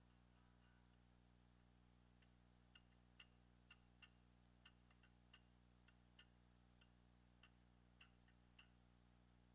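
Near silence: a steady faint electrical hum, with a string of faint sharp ticks, irregularly about two a second, starting about two seconds in and stopping near the end.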